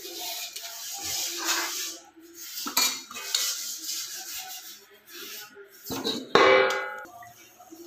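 Steel spoon stirring and scraping in a metal cooking pot of gravy, with scattered clinks of metal on metal. About six seconds in, a loud metallic clang that rings briefly.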